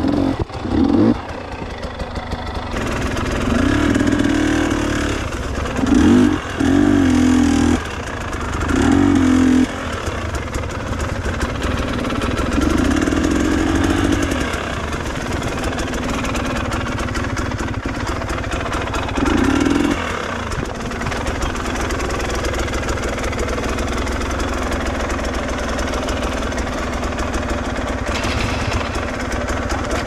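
Enduro dirt bike engine running at low revs while the bike picks its way over rocks, with repeated short throttle blips that raise the engine note, the longest about four and thirteen seconds in.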